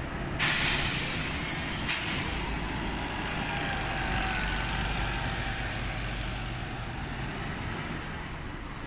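Volvo bus with a sudden loud burst of compressed-air hiss about half a second in, lasting about two seconds, then its diesel engine running with a low rumble and faint whine, slowly fading.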